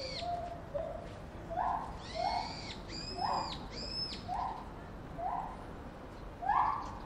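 Chimpanzee calls: a run of short hoots, roughly one a second, with high-pitched squealing calls mixed in twice. The calling grows louder near the end.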